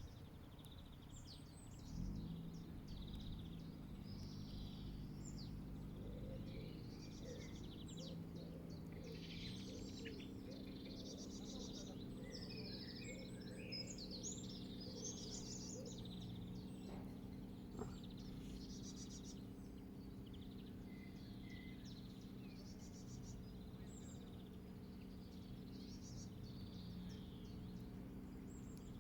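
Several small birds chirping and trilling throughout, over a steady low drone that comes in about two seconds in.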